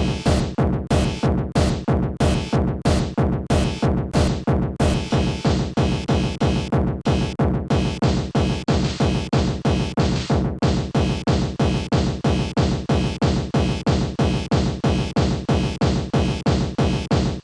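Fast electronic techno music driven by a heavy kick drum at about three beats a second over a steady bass line.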